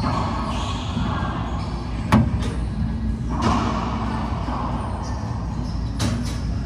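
Racquetball shots: two sharp cracks of the ball about four seconds apart, the first the louder, over a steady background noise in the court.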